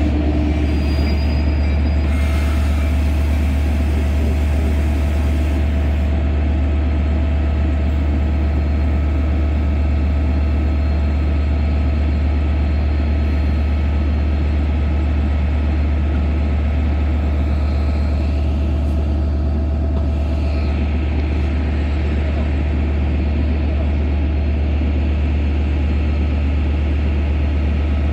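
Long Island Rail Road diesel locomotive standing at the platform with its engine running: a loud, steady low hum with a constant whine above it.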